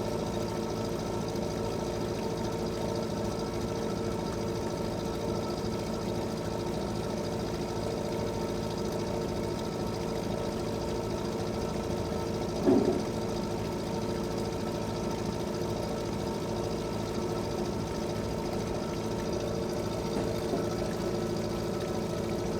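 Fishing boat engine running steadily at low speed with an even, rapid chugging beat. A brief louder sound breaks in about halfway through.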